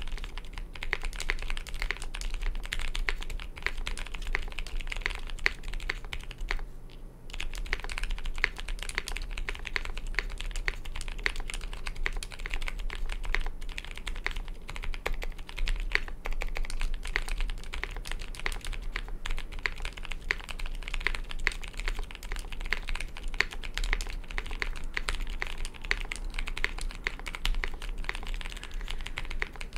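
Continuous fast typing on a Gray Studio Space80 Apollo mechanical keyboard with Zealios V1 65g tactile switches and GMK Eclipse keycaps: a dense run of key clacks with one short pause about a quarter of the way through.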